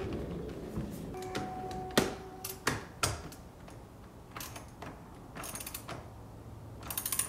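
Ratchet wrench clicking in short bursts while tightening the airbag module's bolts behind a steering wheel hub, with a brief squeak and a few sharp knocks about two seconds in.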